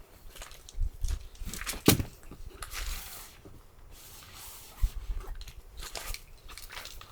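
Irregular small clicks, crackles and rustles from handling things at close range, with one sharper knock a little under two seconds in.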